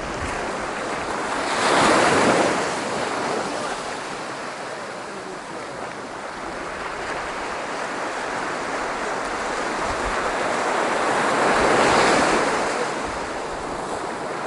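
Sea surf on a beach: a steady wash of waves, with two waves breaking and swelling up loudly, about two seconds in and again about ten seconds later.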